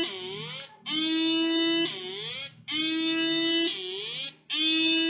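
Seven-transistor alarm circuit driving a small loudspeaker, sounding its second alarm pattern: a steady buzzy tone for about a second, then a quieter tone that swoops upward, the cycle repeating about every two seconds.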